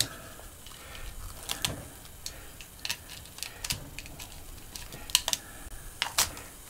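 Irregular sharp clicks and metal clinks, about half a dozen: wire cutters snipping the small lead wires off an air conditioner fan motor's copper-wound stator, and the cut wires and tools being handled.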